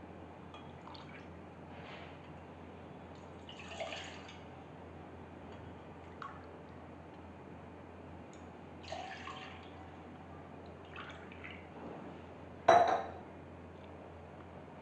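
Water poured from a cup into a cooking pot three times, three short splashes about four to five seconds apart, the last one the loudest with a sharp start.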